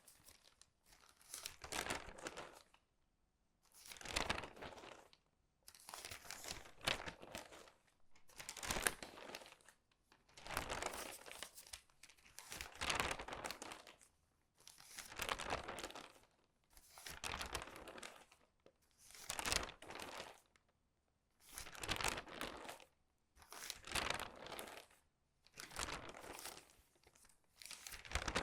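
Crinkly, crumpled newspaper pages turned quickly one after another, each turn a short crinkling rustle. There is about one turn every two seconds, with brief quiet gaps between.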